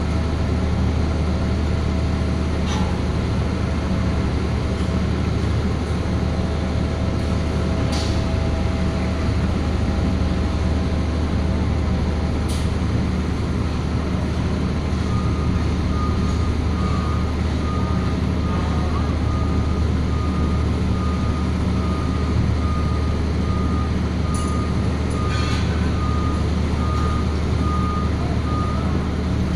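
A large engine running steadily with a low hum. From about halfway, a high warning beep repeats somewhat more than once a second, like a reversing or hoist alarm, with a few short clicks.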